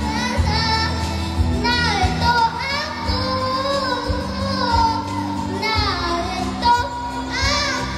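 A young girl singing a song through a handheld microphone and PA speakers, her held notes wavering with vibrato, over backing music with a steady low beat.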